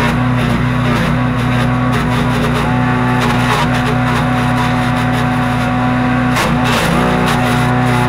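Harbor Freight Predator wood chipper's gas engine running under load while leafy branches are fed in and chipped, with crackling from the wood going through; the audio is sped up with the timelapse. The engine note dips briefly about six and a half seconds in, then recovers.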